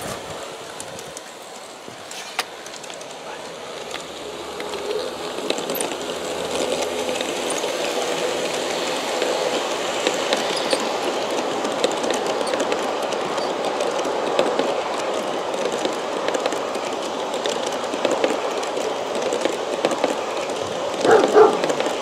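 G-scale Aristo-Craft model passenger train running on outdoor track: a steady rolling rumble of metal wheels on rail that grows louder from a few seconds in as the cars come by. A brief, louder pitched sound is heard near the end.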